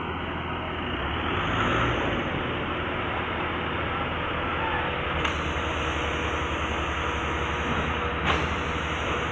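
Concrete mixer and pump machine running steadily, a continuous mechanical noise with a low engine pulse and a steady hum. Two short clicks come through, about five and eight seconds in.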